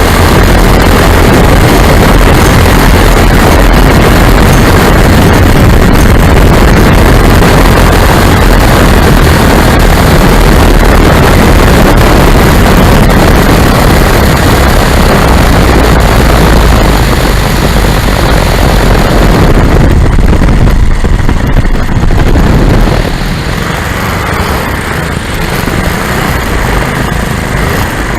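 Lazair ultralight's twin engines running in flight, buried under heavy wind noise on the microphone. The sound drops noticeably a little over three-quarters of the way through.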